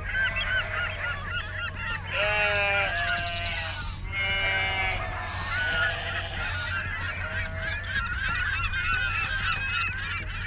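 A flock of birds honking, many calls overlapping at different pitches.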